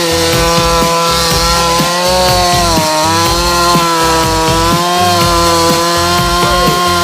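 Two-stroke chainsaw running at high revs while cutting wood, its engine pitch dipping briefly about three seconds in and then recovering.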